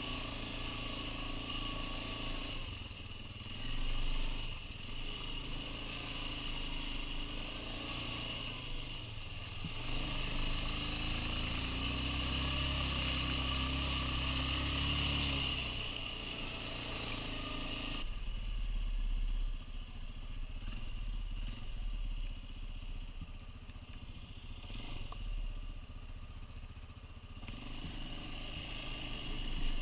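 Quad bike engine running, its revs rising and falling as it rides.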